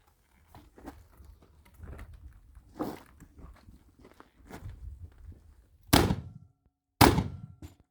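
Two gunshots about a second apart, each a sharp crack followed by a sudden drop-out of the sound; before them, light knocks and shuffling of handling and footsteps.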